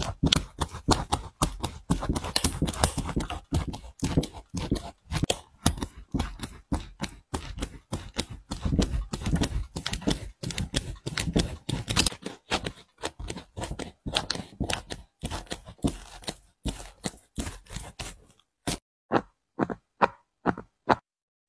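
Utility knife blade cutting through the glued seam and foam midsole of a Nike Kyrie 1 basketball shoe: a fast run of short, scratchy cutting strokes. Near the end the sounds thin out into a few separate sharp clicks.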